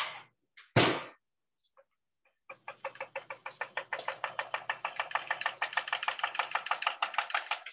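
A spoon stirring in a mug, clinking quickly and evenly against its sides, about six clinks a second, as coffee is mixed into hot chocolate. A single knock comes about a second in, before the stirring starts.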